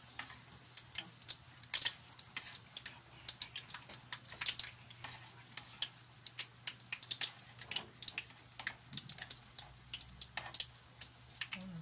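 Squash fritters deep-frying in hot oil: a steady sizzle with dense, irregular crackling and popping, while tongs prod and turn the fritters in the pan. A steady low hum runs underneath.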